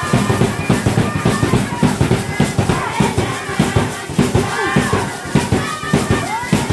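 Zulu dance music: a steady drum beat of about three strokes a second under group singing, with high calls rising over it.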